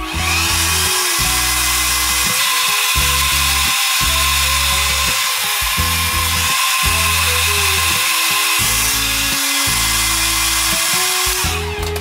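Vitek handheld hair dryer running steadily, a strong hiss of blown air with a faint motor whine, aimed at a Swiss Army knife's red plastic scales. It switches on at the start and cuts off about a second before the end.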